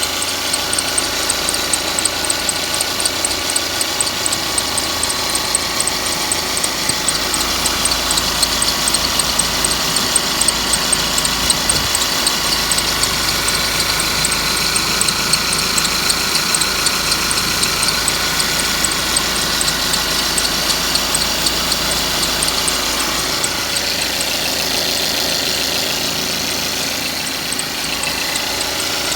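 Mercedes-Benz C180's M274 four-cylinder turbocharged petrol engine idling steadily, with a whistle from the engine over a fast, even ticking. Part of the lower sound eases off about three-quarters of the way through.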